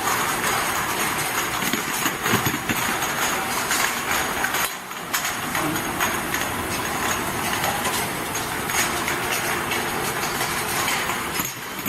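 A bottle and vial washing machine running: a steady mechanical noise full of rapid clicks and rattles. It dips briefly about five seconds in.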